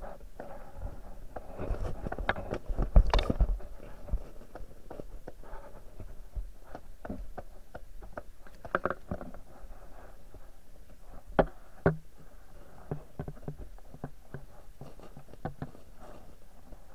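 Muffled knocks, clicks and low bumps heard underwater through a camera hung beneath lake ice. A louder run of rumbling bumps comes about two to four seconds in, and two sharp knocks come near the twelve-second mark.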